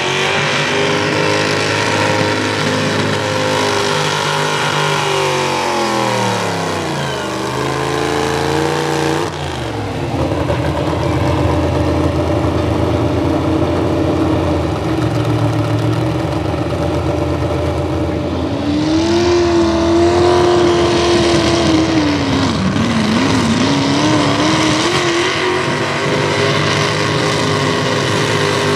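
V8 engines of Hot Rod V8 class pulling tractors running at high revs under load as they drag a weight-transfer sled. The engine pitch sags and climbs back several times, and the sound changes abruptly about a third of the way in.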